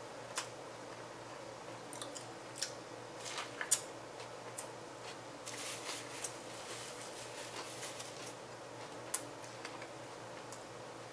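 Mouth sounds of a person eating a sandwich, with scattered sharp clicks and smacks, and a paper napkin rustling for about a second halfway through.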